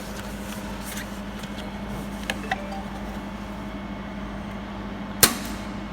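Steady hum of a running 200 W jewelry YAG laser welding machine, with faint ticks. About five seconds in there is a single sharp snap, a laser pulse fired onto focus paper to check the beam's focus.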